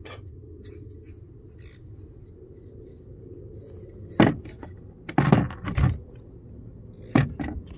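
Handling noise from a cardboard subwoofer port tube being turned and moved in the hand: a few knocks and scrapes, the first about four seconds in, a cluster a second later and two more near the end, over a steady low hum.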